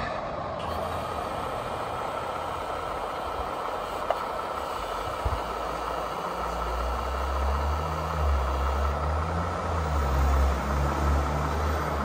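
Scale RC tipper truck at work: a steady mechanical whine runs throughout, and the low rumble of a simulated diesel engine swells in about six and a half seconds in. There are a couple of small ticks shortly before it.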